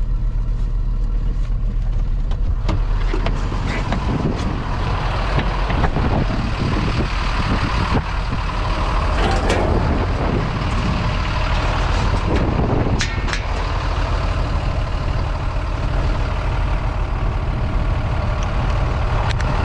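De-icing truck's engine running steadily with a loud low rumble, with a few knocks and clicks as someone climbs into its bucket and handles the boom controls.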